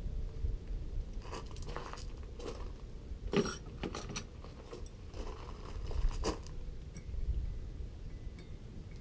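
Irregular short clicks and crunches, about eight over five seconds, as a man handles an outboard's propeller hub and shifts his feet on gravel, over a low steady rumble.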